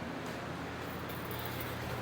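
Steady low background hum and hiss with no distinct knocks or clicks.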